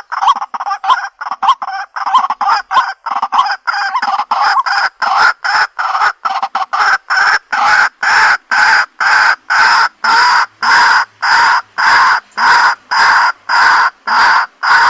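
White-breasted waterhen giving its repeated 'ruak-ruak' call. The notes come quick and uneven at first, then settle after a few seconds into a steady rhythm of about two a second.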